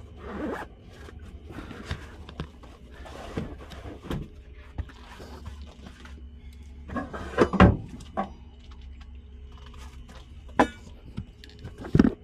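Handling a backpack and gear: rustling fabric and a zipper, with scattered clicks and several sharp knocks and thumps. The loudest come about halfway through, another near the end, over a low steady hum.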